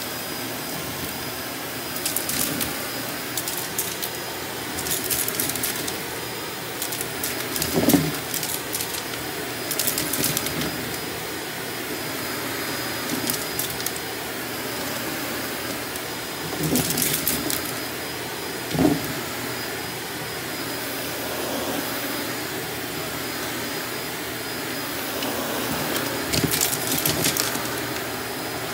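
Vacuum cleaner running steadily on carpet, its tone rising and falling about once a second as it is worked back and forth. Scattered bursts of crackling and rattling come as dirt and debris are sucked up, with a dull bump twice.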